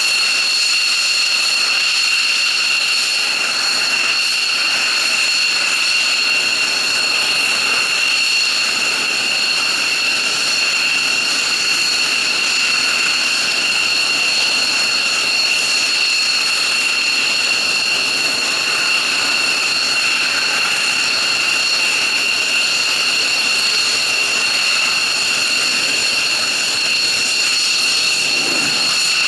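F-15J fighter's twin F100 turbofan engines running steadily at ground idle: a loud, unchanging high whine over a jet rush.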